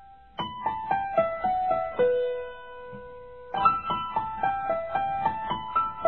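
Background piano music: slow runs of single notes stepping downward, one note held for over a second, then a new phrase beginning about halfway through.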